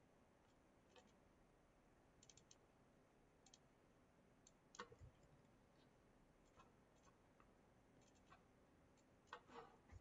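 Faint computer mouse clicks, scattered singly and in quick clusters, over near-silent room tone.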